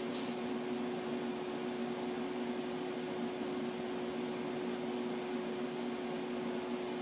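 Spray booth exhaust fan running with a steady hum. The last of an airbrush spray hiss cuts off within the first half second.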